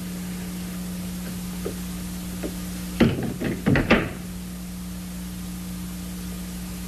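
A door being shut: a quick cluster of knocks and thuds lasting about a second, about three seconds in. A steady hum from an old film soundtrack runs underneath.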